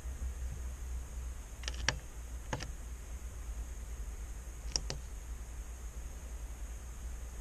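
A few light, sharp clicks, two of them in quick pairs, over a steady low hum and a faint high whine.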